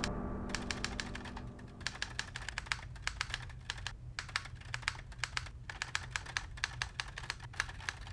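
Typing: quick, irregular key clicks, several a second, with short pauses about half a second and about four seconds in, sounding as the text is typed out. A low sound left over from before fades away over the first two seconds.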